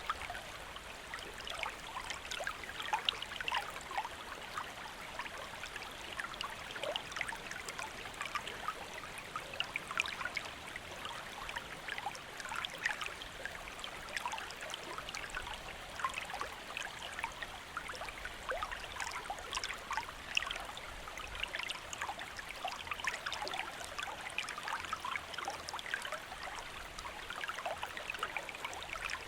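Shallow stream flowing steadily over rocks, a continuous babble and trickle of water with many small splashes and bubbles.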